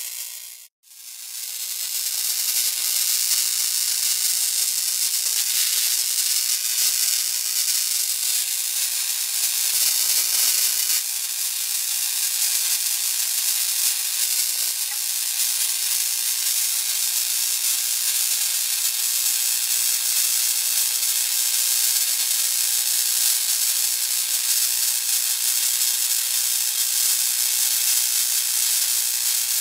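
High-voltage electrical discharge hissing steadily, an even sizzle with most of its energy high up. It cuts out for a moment about a second in, then resumes unchanged.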